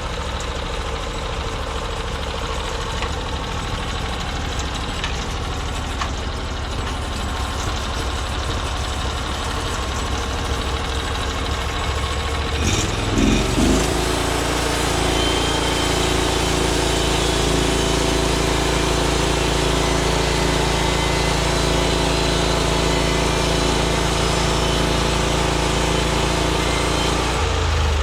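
The small gasoline engine of a Norwood MX34 portable bandsaw mill running steadily. About halfway through, it revs up and holds at a higher, louder speed.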